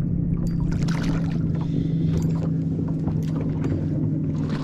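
Steady low hum of the boat's electric trolling motor holding position, with scattered light clicks and knocks on the boat.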